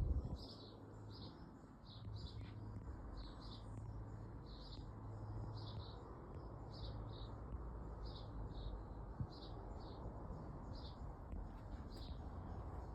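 A bird chirping over and over, short high notes coming about once or twice a second, over a steady low rumble.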